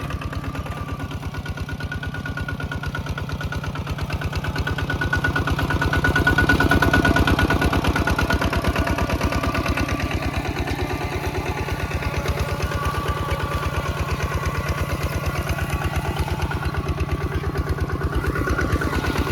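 Mini tractor's engine running under load with a rapid, even beat, swelling louder a few seconds in and then settling back.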